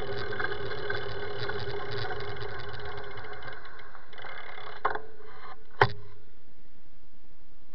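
Steady street-traffic and riding noise picked up by a camera on a moving road bicycle, with a low engine-like hum. Two sharp clicks come about five and six seconds in, after which the sound thins out.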